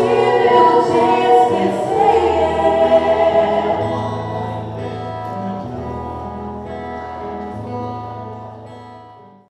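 Choral singing with instrumental accompaniment and a stepping bass line. The voices end about four seconds in, and the instruments hold their final notes and fade out until the sound cuts off near the end.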